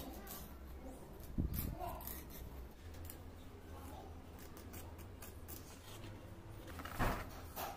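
Hands working the stitched edge of a small leather sheath on a work board: light rubbing and small clicks, with a knock about a second and a half in and a louder one near the end.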